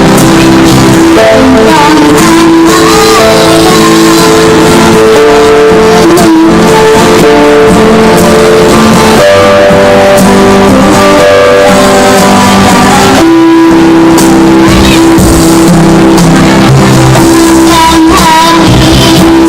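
Loud instrumental backing music led by guitar, with held notes and changing chords: an instrumental passage between sung lines.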